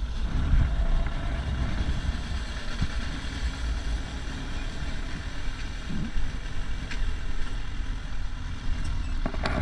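Suzuki 600 Bandit motorcycle's inline-four engine running at low road speed, under a steady low wind rumble on the helmet microphone.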